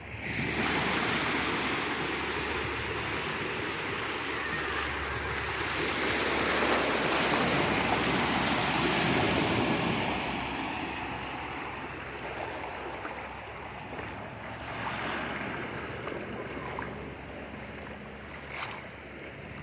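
Ocean surf washing up on the shore, a steady rushing that swells about a third of the way in and eases off in the second half.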